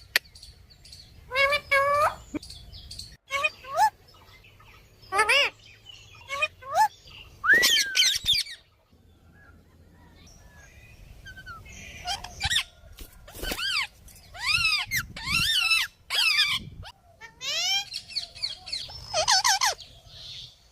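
Two parrots calling back and forth in a string of harsh, squawking calls. The calls come in clusters, with a lull of a few seconds about halfway through.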